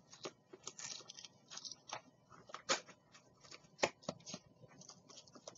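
Plastic blister pack and cardboard backing card of a toy package being handled and worked at with a craft knife: faint, irregular crinkles, scrapes and clicks, two sharper clicks a little past the middle.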